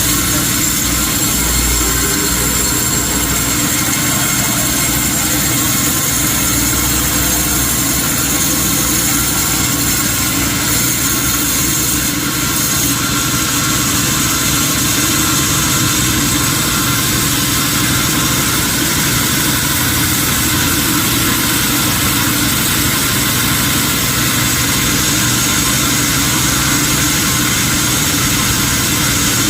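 Sawmill machinery running steadily, a loud continuous engine-like drone with no clear breaks.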